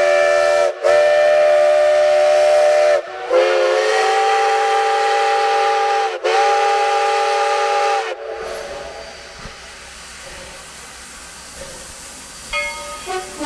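Steam locomotive whistle blowing four long blasts with only brief breaks between them, the pitch sagging at each break; then the engine's steam hissing more quietly for the rest.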